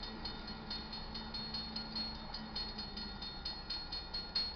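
Railroad grade-crossing warning bell ringing in rapid, even strikes, about four a second. It signals an approaching train: the crossing lights are flashing and the gate arm is starting to lower.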